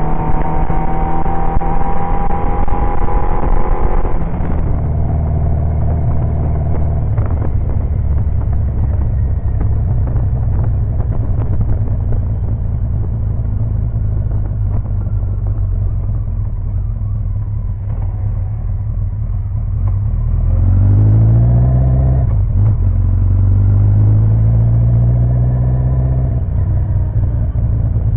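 Kawasaki 1000GTR motorcycle's inline-four engine running. Its pitch rises over the first few seconds and drops sharply at about four seconds. It then runs steadily, climbs again at about twenty seconds, and settles.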